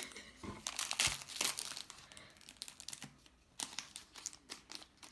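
Plastic wrapping of small L.O.L. Surprise packets crinkling and tearing as they are opened by hand, in irregular crackles that are busiest in the first second and a half.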